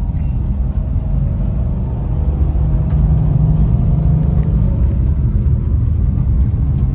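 Camper van driving along a wet road, its engine and road rumble heard from inside the cab, rising a little about two and a half seconds in.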